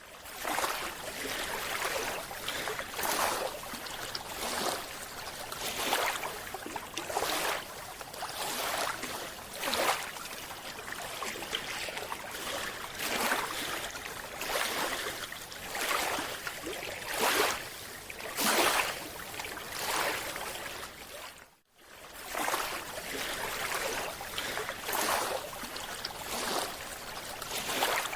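Water rushing and sloshing in repeated surges, swelling and fading about once every second and a half, with a brief break about two-thirds of the way through.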